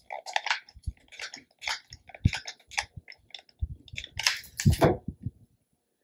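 Close handling noise: scratchy rustling of jute rope being pressed and worked around a plastic bottle, with crinkles of the plastic and a few light knocks on the table, loudest about five seconds in.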